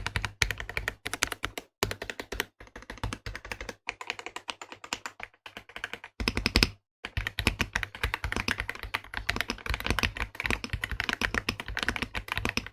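AULA F75 mechanical keyboard with Grey Wood switches and a gasket-mounted polycarbonate plate being typed on: a fast, steady run of keystroke clacks, with a brief pause about halfway through.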